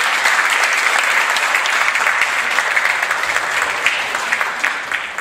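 Audience applauding: dense clapping of a small crowd, tapering off near the end.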